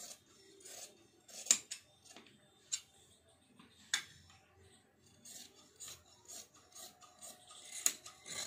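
Scissors cutting through folded printed suit fabric: a string of uneven snips with rustling of the cloth between them, the sharpest clicks about a second and a half in, at four seconds and near the end.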